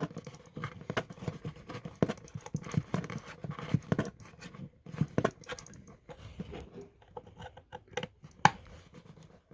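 Screwdriver driving the single screw that holds the electrical box onto a vintage sewing machine: irregular small clicks and scrapes of the tool against the screw and metal, with a sharper click about eight and a half seconds in.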